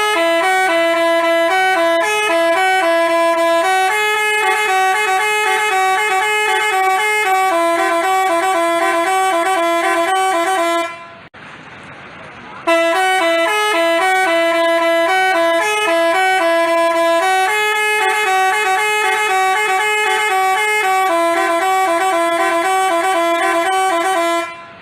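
Basuri telolet multi-tone bus horn playing its jingle, a quick tune of stepping horn notes. It stops about 11 seconds in, and after a short break the same tune plays again.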